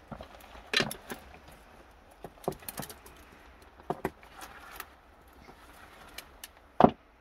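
A T-handled metal digging tool jabbing and scraping into rocky soil among stones to loosen dogbane roots: scattered knocks and scrapes, the loudest a sharp knock near the end.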